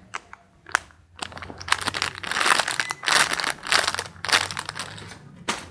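Plastic crinkling in irregular bursts as a squishy and its plastic wrapping are handled, with a few sharp clicks.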